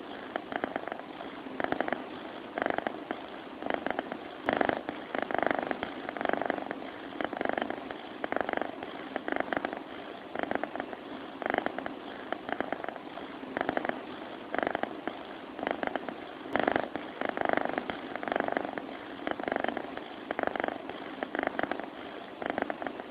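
Sleeping cat purring: a rough, rattling sound that swells with each breath, about once a second.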